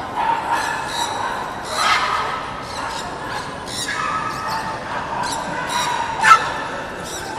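Dogs whining in high-pitched, wavering tones that come and go, with one sharper, louder yelp about six seconds in.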